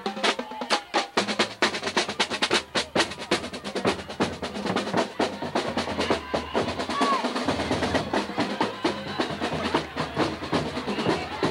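A marching band drumline of snare drums and bass drums playing a rhythmic cadence while marching. The strikes are sharpest in the first few seconds and become denser and less distinct after that.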